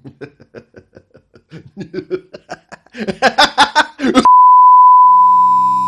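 A rapid train of short clicking pulses that speed up and grow louder, cut off a little past four seconds in by a loud, steady electronic beep held for about two seconds.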